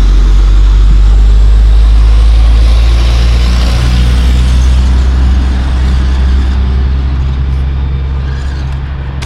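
Engine of a heavy vehicle passing close by, loud at first and fading away slowly over the last several seconds.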